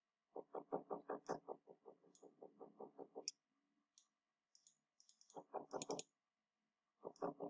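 Faint computer-mouse handling: runs of rapid, even ticks, about eight a second, from a scroll wheel, with single sharper button clicks in between.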